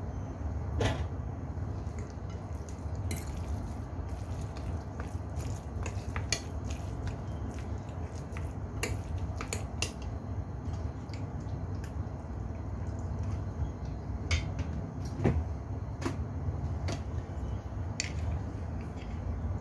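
Wooden chopsticks and a metal fork mixing marinated minced pork in a ceramic bowl: irregular clicks and taps of the utensils against the bowl with soft squishing of the meat, over a steady low hum.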